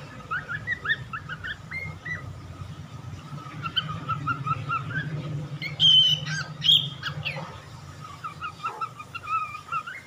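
Young lutino cockatiel singing a string of short chirps and whistled notes, with two louder, higher whistles about six seconds in.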